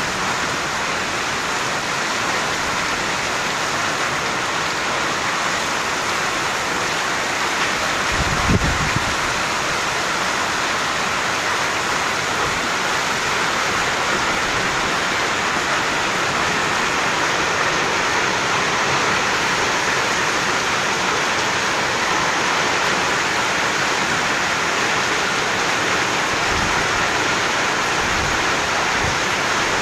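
Heavy rain and hail coming down hard, a dense steady hiss of drops and hailstones hitting the ground and surfaces. A brief low thump about eight seconds in.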